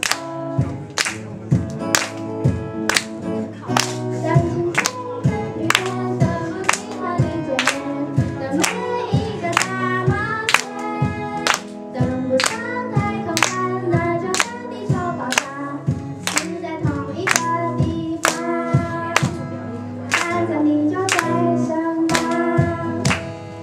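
A woman singing a song into a microphone to strummed acoustic guitar accompaniment, with sharp claps keeping the beat about twice a second.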